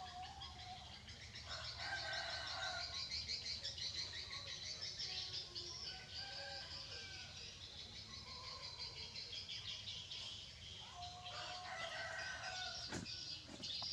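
Rural outdoor ambience: a dense, rapid, high chirping runs throughout, with several short animal calls scattered over it and a single sharp knock near the end.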